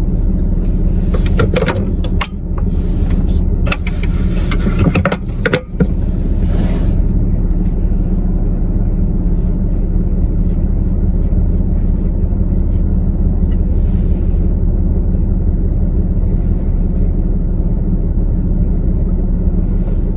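Steady low rumble of a car's engine and road noise heard from inside the cabin while driving, with a cluster of clicks and knocks in the first several seconds.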